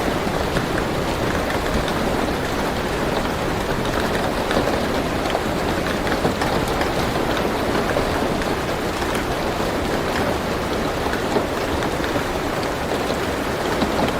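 Steady rain falling on a car roof, heard from inside the car: an even hiss with scattered individual drop ticks.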